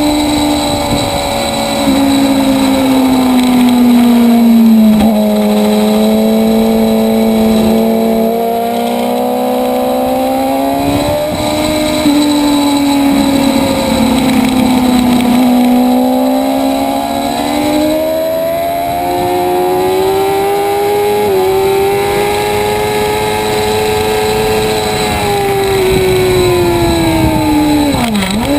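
Motorcycle engine heard onboard while lapping a race track, its pitch climbing and falling as the rider works the throttle and shifts. Near the end the revs drop sharply twice, as on downshifts into a corner.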